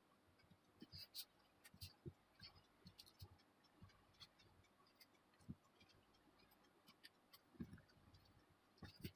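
Faint, scattered small clicks and soft taps of a pen-style hobby knife trimming a thin nylon cloth cape sheet on a cutting mat, the blade nicking through the cloth and the fabric shifting under the fingers.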